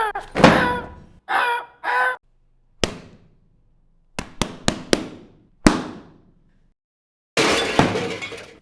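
Hand-made foley for a crow attack: a couple of short imitated crow caws, then a series of sharp knocks and glassy clinks with brief ringing, like a bird striking and cracking a windowpane, ending in a noisy crash about a second before the end.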